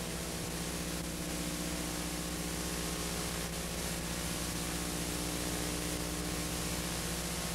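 Steady hiss with a low electrical hum and its overtones: the blank audio track of a transferred VHS tape before the programme sound starts.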